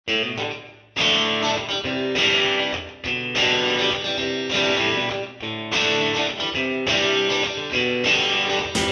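Intro music of strummed guitar chords, played in phrases with short breaks every couple of seconds.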